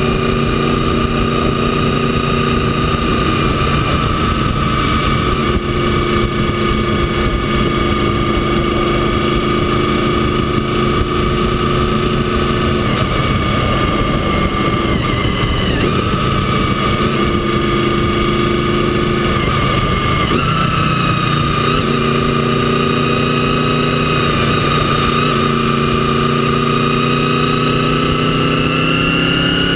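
Motorcycle engine running while riding, heard from on the bike, over a steady rush of wind and road noise. The engine pitch shifts and breaks around the middle as the rider changes gear, then rises steadily near the end as the bike accelerates.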